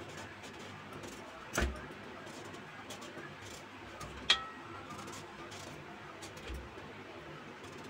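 A kitchen knife cutting raw papaya over a stainless steel plate: quiet scattered clicks, with two louder knocks, about one and a half seconds in and about four seconds in, the second with a short metallic ring.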